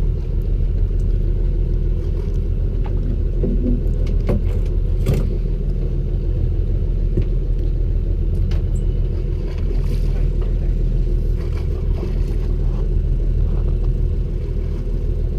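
Fishing boat's engine running steadily with a low rumble, with a few light knocks on board.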